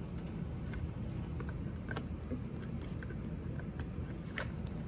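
A few faint, sharp clicks and light knocks of the tool's parts being handled and fitted together by hand, over a steady low hum.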